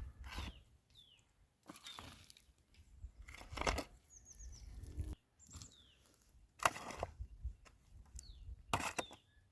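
A series of sharp knocks or cracks at irregular intervals, roughly one every one to two seconds. Small birds chirp with short falling notes, and there is a quick run of chirps about four seconds in.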